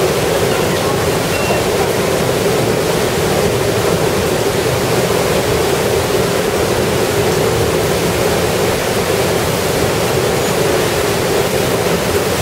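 Steady rushing of Tunnel Falls, a tall waterfall on Eagle Creek, heard from inside the rock tunnel that runs behind it.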